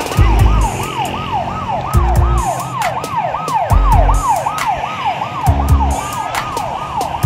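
Ambulance siren sounding in a fast repeating pattern, each cycle a quick falling sweep in pitch, about three a second. Several short low thumps come and go over it.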